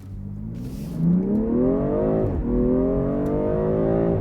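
BMW M340i's turbocharged 3-litre inline-six accelerating at full throttle, heard inside the cabin with active sound design piping extra engine and exhaust sound through the speakers. The revs climb, fall sharply at an upshift a little over two seconds in, climb again, and fall at another shift near the end.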